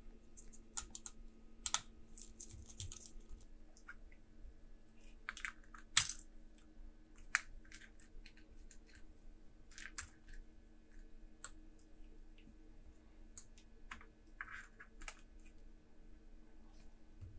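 Scattered small clicks and taps of a screwdriver, plastic pry tool and small plastic and metal parts as a laptop's internals are taken apart, the sharpest tap about six seconds in. A faint steady hum runs underneath.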